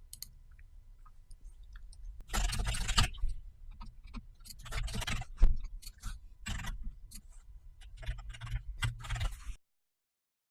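Computer keyboard typing and mouse clicks in irregular clusters, some quick runs of keystrokes, over a faint low hum; the sound cuts off suddenly near the end.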